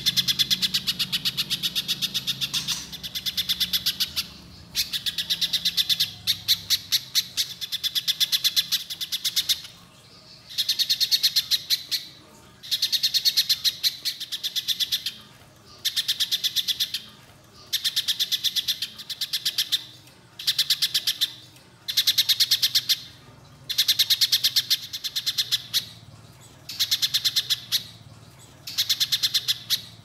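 A little spiderhunter singing: runs of very rapid, sharp high notes, each run lasting about a second, repeated over and over with short pauses between them.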